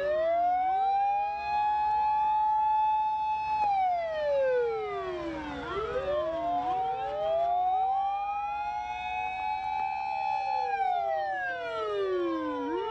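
Sirens of several Japanese fire-service emergency vehicles wailing at once in a convoy. The loudest rises to a long high note, holds it for a few seconds, then falls away, twice over, while other sirens slide up and down behind it.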